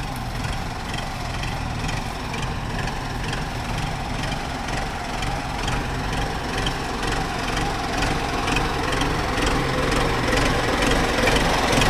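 Kubota tractor's diesel engine idling steadily, growing a little louder toward the end.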